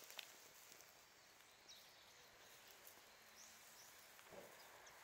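Near silence: faint outdoor quiet with a few short, high bird chirps spread through, and a soft rustle about four seconds in.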